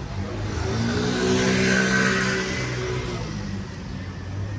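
A car passing close by: engine and tyre noise swell, peak about two seconds in, then fade away.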